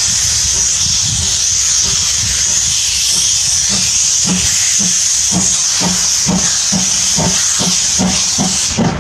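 Steam locomotive starting a train, its open cylinder drain cocks blowing a loud, steady hiss of steam. From about four seconds in, exhaust chuffs come at roughly three a second, and the hiss stops just before the end.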